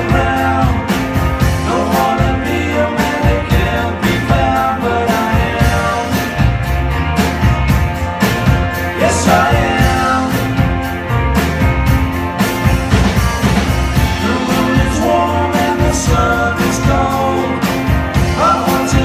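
Live rock band playing a song: electric guitars, bass guitar and a drum kit, loud and continuous.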